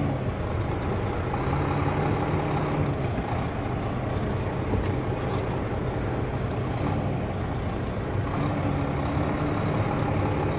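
Semi tractor's diesel engine running steadily at low revs during a slow reverse manoeuvre, heard through the open driver's window.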